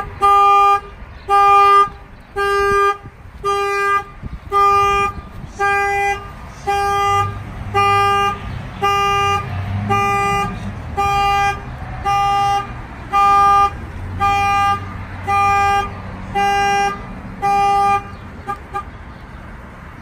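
A Peterbilt truck's horn honking over and over in a steady, even rhythm, about one honk a second, as the truck's tripped security alarm sounds. The honks stop a couple of seconds before the end.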